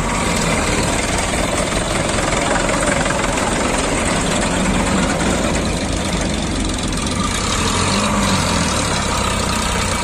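Sonalika DI RX tractor's three-cylinder diesel engine running steadily, mixed with the engine of a JCB backhoe loader working alongside.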